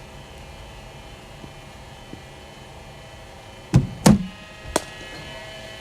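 A steady hum from the running bowling machine, then about two-thirds of the way through three sharp knocks within a second. They are a cricket ball being fired by the bowling machine and struck by the bat, the middle knock being the loudest.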